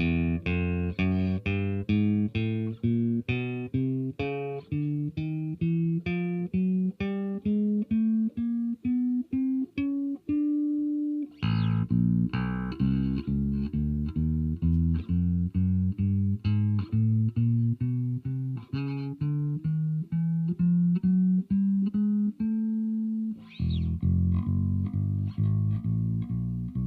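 Fernandes FRB-60 Revolver electric bass played unaccompanied: a steady run of plucked single notes, about three to four a second, climbing stepwise in pitch. There is a brief break about eleven seconds in, then a second phrase, and another short break near the end.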